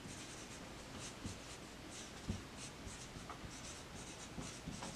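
Marker pen writing on a whiteboard: faint squeaks and scratches in short, irregular strokes as the letters are written out, with a soft knock a little over two seconds in.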